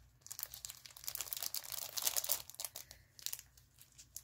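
Clear plastic cellophane packet of craft paper crinkling in quick, irregular crackles as hands handle it and pull at it to get it open.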